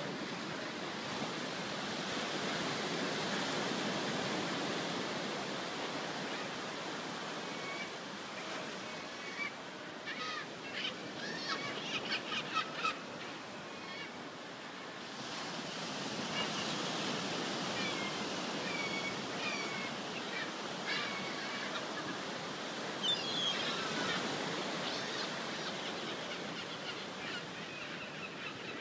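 Surf breaking and washing up a sandy, rocky beach: a steady rush that swells and eases. Gulls call over it, in a burst of calls about ten to thirteen seconds in and scattered calls later on.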